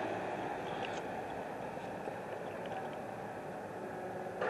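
Compact excavator's diesel engine running steadily at a distance, a low even rumble.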